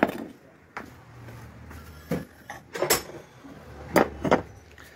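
Irregular clanks and knocks of metal electric-motor parts, the housing, end cover and rotor, being handled and set down on a tiled floor as a water-pump motor is dismantled; about six sharp knocks.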